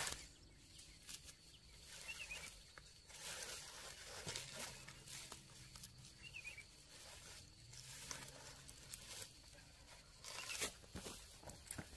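Dry banana leaves and fibre rustling, crackling and tearing in irregular bursts as banana bunches are handled and someone shifts about on the dry leaf litter.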